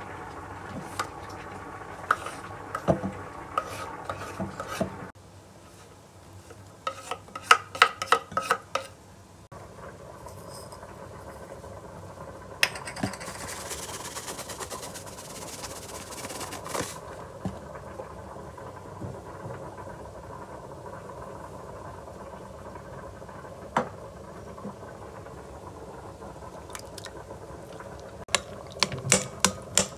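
Kitchen food-prep sounds: a knife scraping grated zucchini and carrot off a wooden chopping board into a glass bowl, and a fork clinking against the bowl. Around the middle, a few seconds of hissing as seasoning granules are shaken from a box. Near the end, a run of sharp taps as eggs are cracked against the glass bowl.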